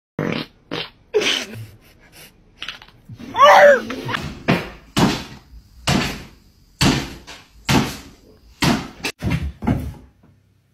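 A dog yelping: one high, wavering yelp about three and a half seconds in, among a run of short, sharp sounds about once a second.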